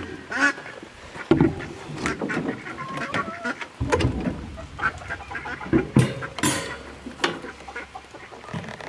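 Poultry calling, with quacks and clucks coming in short bursts throughout, over a few sharp wooden knocks as the coop's nest-box lid is lifted and handled.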